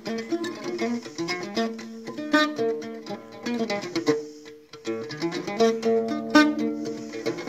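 Solo Algerian mandole picked with a plectrum: an instrumental break of quick melodic runs over ringing lower strings, in chaabi style. The playing thins out briefly a little past four seconds in, then picks up again.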